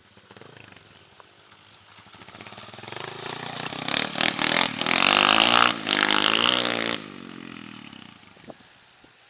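140cc Orion pit bike engine revving as the bike comes closer, growing louder over a few seconds and loudest for about three seconds in the middle, then dropping off sharply with a falling pitch about seven seconds in.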